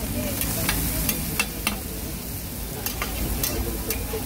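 Metal spatula scraping and clicking against a flat steel griddle, turning sliced potatoes, with food sizzling underneath. The clicks come irregularly, about a dozen over the few seconds.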